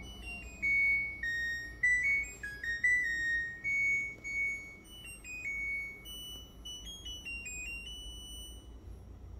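LG Direct Drive washer-dryer's electronic beeper playing its end-of-cycle melody, a tune of high, clear notes that signals the wash cycle has finished.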